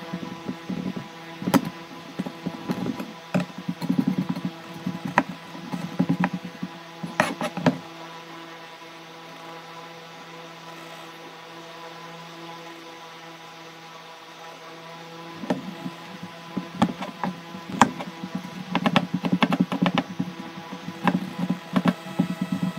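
Kitchen knife tapping and cutting on a plastic cutting board in irregular knocks while trimming fried dried fish. The knocking stops for about seven seconds in the middle, then comes back dense. A steady hum runs underneath.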